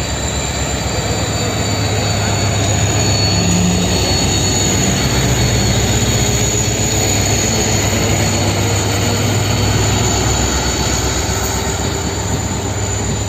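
WDP-4D diesel-electric locomotive pulling away under power: its turbocharged 16-cylinder two-stroke engine drones with an intense steady hum, and thin high whines sit above it. The sound swells towards the middle and eases a little near the end.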